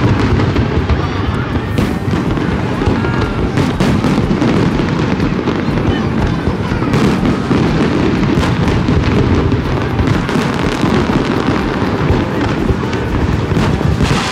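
Aerial fireworks bursting in a continuous barrage: a dense, steady rumble of booms with sharp cracks scattered throughout.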